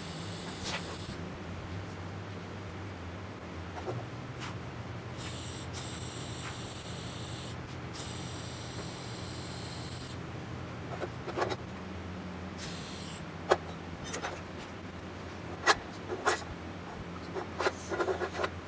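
Low-amperage TIG welding on thin stainless steel: a hissing arc comes on and stops in runs of a few seconds over a steady low hum. In the second half come several light metallic taps and clicks.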